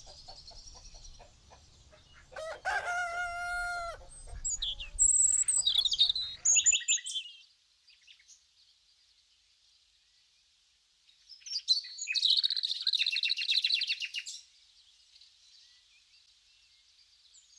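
Farmyard sound effects: a rooster crows once about two and a half seconds in, with small birds chirping around it. After a lull of a few seconds, a burst of bird chirping comes about twelve seconds in.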